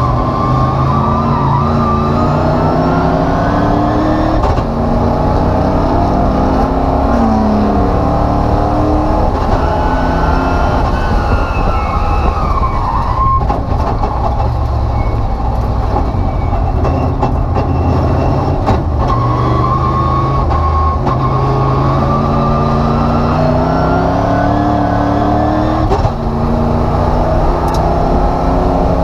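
Race car engine heard from inside the caged cockpit at full racing pace. Its pitch climbs and drops again and again as it revs up, shifts and backs off, over steady road and wind noise.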